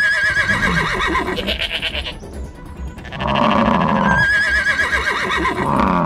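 Cartoon farm-animal calls over background music with a steady beat: two wavering, whinny-like calls, one at the start and one about four seconds in, mixed with lower grunts and bleats from the angry herd.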